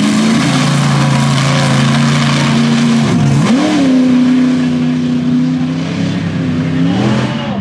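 Mega truck engine running hard under load, its pitch holding steady, dipping briefly about three seconds in and then climbing back up, and falling off near the end as the revs drop.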